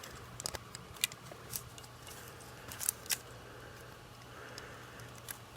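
Faint, scattered plastic clicks of a Qiyi 1x3x3 fidget-spinner cube as its layers are turned by hand and click into place, a handful of clicks spread irregularly across a few seconds.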